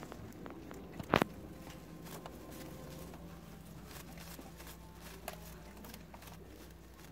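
Faint rustling and crackling of dry straw as week-old rabbit kits squirm in their nest, with one short sharp click about a second in. A low steady hum lies underneath.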